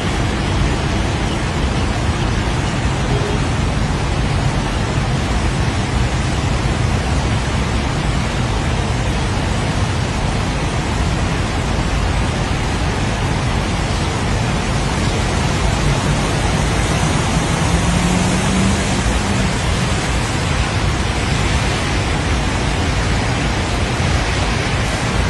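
Strong wind blowing hard into the microphone: a steady loud rush with a deep rumble, without letup.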